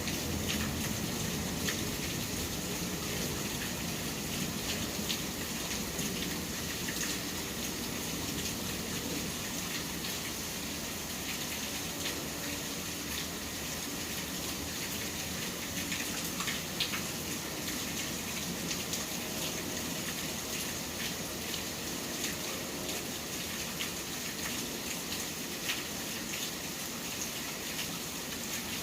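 Steady rain falling, with scattered drops ticking sharply, over a low city rumble that eases after the first ten seconds or so.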